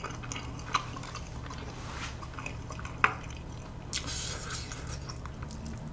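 Quiet wet mouth sounds of a person eating spicy stir-fried noodles: a few soft sticky clicks and a brief rustle about four seconds in, over a low steady hum.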